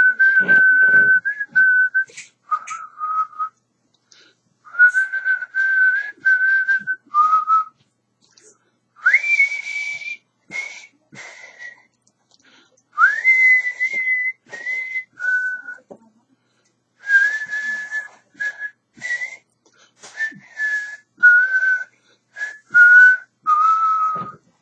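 A man whistling a slow melody through pursed lips, in phrases of held notes with short pauses between them; twice, near the middle, a note slides up into pitch.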